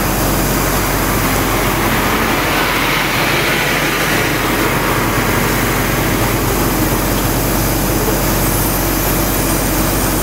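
A machine running steadily: a continuous loud mechanical drone with a hiss over it, swelling a little in the upper range about three seconds in.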